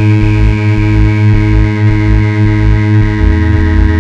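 Loud electronic drone music: a dense stack of sustained tones over a throbbing low bass pulse, the bass shifting to a different pattern about three seconds in.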